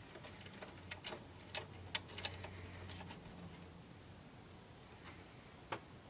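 Faint, scattered clicks and taps of cables and plastic parts being handled inside a Dell OptiPlex GX620 desktop case: several in the first three seconds, then one more near the end.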